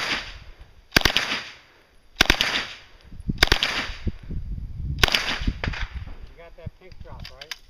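Gunfire on a shooting range: shots or very short bursts about a second apart, six in all, each cluster of cracks trailing off in an echo. A voice is faintly heard near the end.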